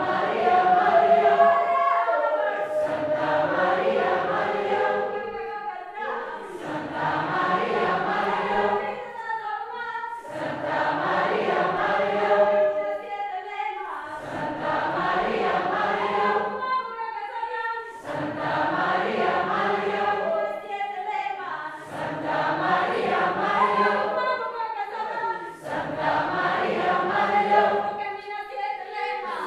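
A group of voices singing together, repeating a song in phrases of about four seconds, each separated by a short breath.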